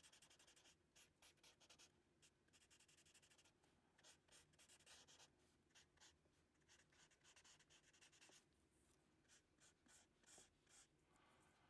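Paper blending stump rubbing and scratching on drawing paper in short, irregular strokes to shade a pencil drawing; faint.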